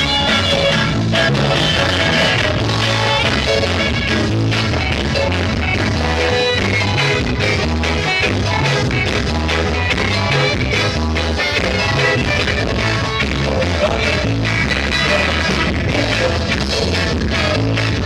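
Rock band music with a strong bass line and a steady beat.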